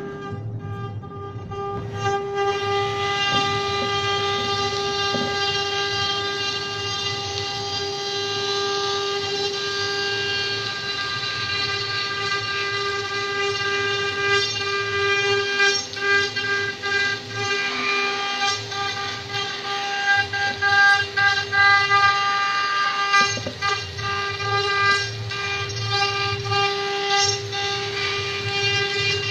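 Multi-spindle CNC wood router running, its spindles giving a steady high whine while the bits cut a carved relief panel. The cutting noise comes in about two seconds in and grows uneven in the second half as the bits load and unload in the wood.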